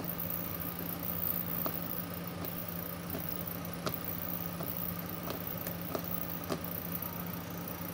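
Oiled homemade slime kneaded and pressed by hand on a wooden board, giving scattered small sticky clicks and squelches, over a steady low mechanical hum.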